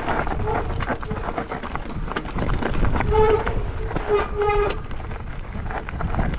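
Mountain bike descending a rough dirt trail, its tyres rumbling over the ground without a break. The disc brakes give short, flat-pitched honks about three seconds in and again a second later.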